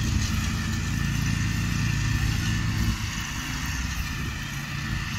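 Small engines of riding lawn mowers running steadily at speed as a low, even hum that drops a little about three seconds in.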